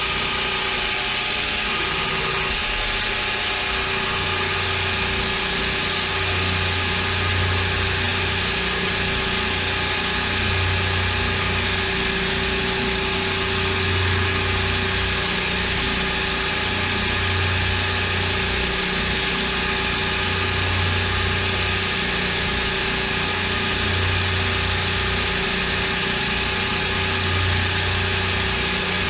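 CNC mill running a machining cycle: steady motor and spindle whine with a hiss of coolant spray, and a low hum that swells about every three and a half seconds.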